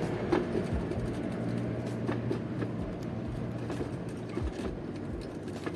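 Steady low hum of an engine running, with scattered light clicks and knocks.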